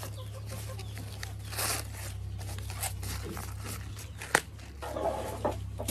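Dry maize husks being torn and stripped off corn cobs by hand in short rustling tears, with one sharp snap about four seconds in, over a steady low hum.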